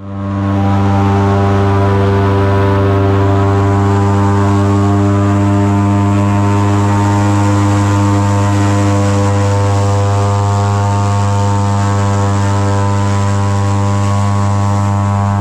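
Airboat's engine and aircraft-type propeller running at a steady speed, a loud, even drone that holds the same pitch throughout.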